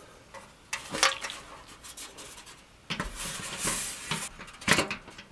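Aluminum fire-table parts and metal hardware being handled during assembly: washers and nuts going onto studs. A few sharp metallic clicks come about a second in, then a second or so of scraping and rubbing about three seconds in, then more clicks near the end.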